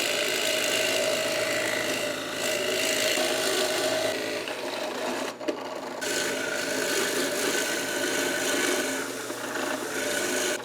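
Drill press running with a 7/8-inch Forstner bit boring into wood, a continuous rasping cut over the steady motor hum, with a short break about five seconds in before cutting resumes.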